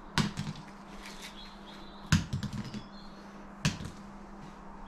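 Breaded chicken nuggets tossed one at a time onto a wooden floor. Each lands with a sharp tap followed by a few quick, smaller bounces, three times in all, about two seconds and then a second and a half apart.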